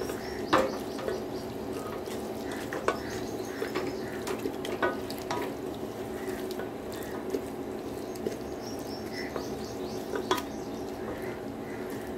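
Wooden spoon stirring and scraping onion-tomato masala as it fries in an aluminium pressure cooker, with the spoon knocking sharply against the pot now and then.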